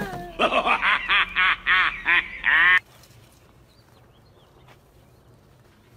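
A quick run of about ten short, duck-like quacks in under three seconds, which stop abruptly and leave only a faint background.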